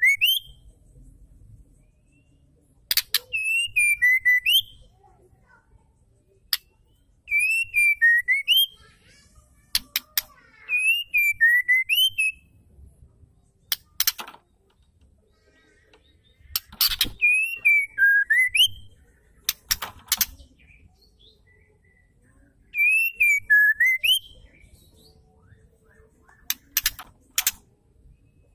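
Female white-rumped shama calling: a wavering whistled phrase with high twittering over it, repeated about six times at intervals of a few seconds, with sharp clicks in between.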